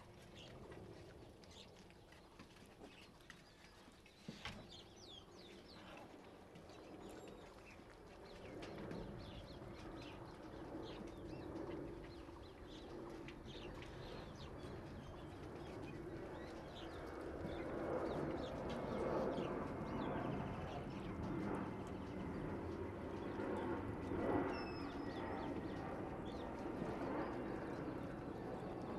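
A litter of young Rottweiler puppies chewing and gnawing raw chicken: many small wet clicks and smacks, growing louder in the second half.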